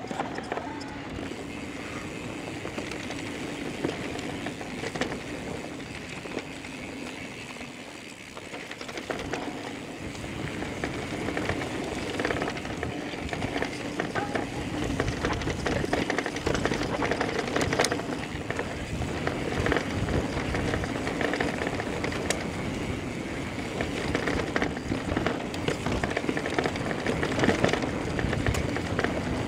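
Electric mountain bike ridden down a dirt trail: tyres running over dirt and pine needles, with the bike rattling and knocking over bumps. It gets louder and busier about ten seconds in as the ride speeds up over rougher ground.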